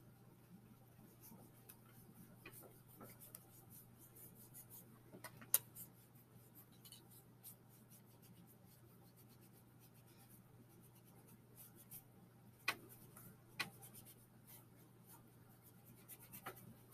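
Near silence: paintbrushes faintly dabbing and rubbing paint onto canvas boards, with a few light taps, the sharpest about five and a half seconds in and two more around thirteen seconds in, over a low steady hum.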